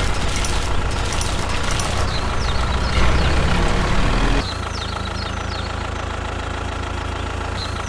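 An engine running steadily, dropping to a quieter, even idle about four and a half seconds in, with short high chirps over it.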